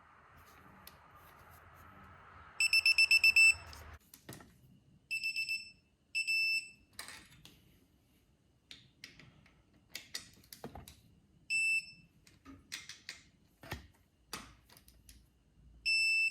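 Electronic beeper of a digital torque wrench going off as intake manifold bolts are tightened to a low set torque. It gives short groups of high-pitched beeps: a fast string of about eight some two and a half seconds in, then shorter groups. Sharp clicks and knocks of the tool work fall in between.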